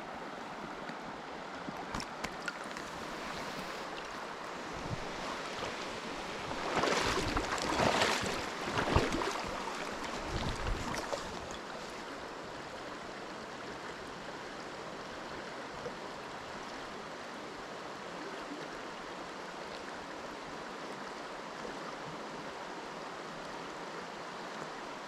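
Creek water running steadily, with a louder, rougher burst of noise and a few knocks about seven to eleven seconds in.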